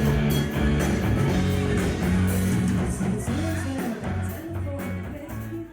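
Background rock music with guitar and a steady beat, easing down in level toward the end.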